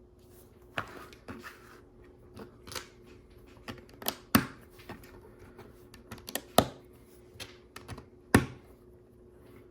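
Plastic LEGO pieces clicking and tapping as they are picked out and pressed together: scattered light clicks, with a few sharper snaps about four, six and a half and eight and a half seconds in.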